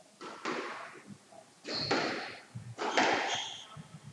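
Squash rally: a squash ball struck by rackets and rebounding off the court walls, three pairs of sharp cracks about a second apart, with short high squeaks of shoes on the court floor.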